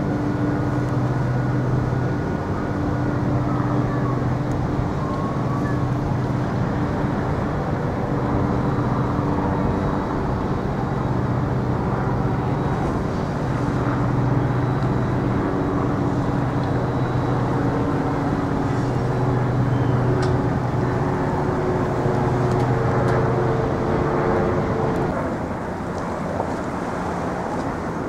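Steady low engine drone holding a few pitches that shift slightly now and then; it drops a little in level near the end.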